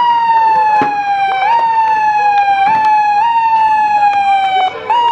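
A siren sounding in a repeating cycle: the pitch jumps up in two quick steps, then slides slowly down over about a second, again and again. Scattered sharp knocks sound underneath, and the siren breaks off for a moment near the end before starting again.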